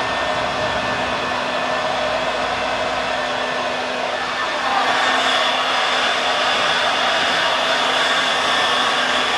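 Electric hot-air heat gun running, a steady rush of blown air with a motor whine, heating a plastic car bumper to soften it for pushing out a dent. It gets a little louder and brighter about halfway through.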